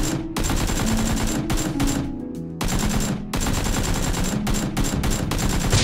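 Rapid bursts of automatic gunfire sound effects, dubbed over a Nerf blaster fight, with brief pauses between bursts, over background music.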